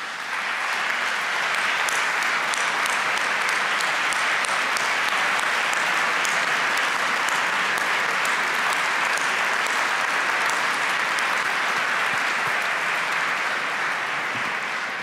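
A large audience applauding steadily, a dense sustained clapping that eases slightly near the end.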